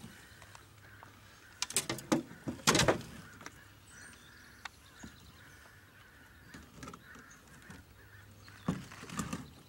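Handling noises of a landing net and a netted channel catfish in a boat: rustling and knocking, with a few loud clattering bursts about two and three seconds in and again near the end.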